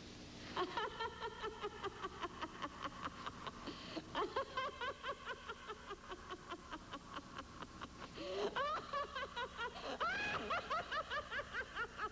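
Cackling laughter: a rapid, chopped "ha-ha-ha" that starts about half a second in and runs on without a break, climbing higher in pitch about eight and ten seconds in.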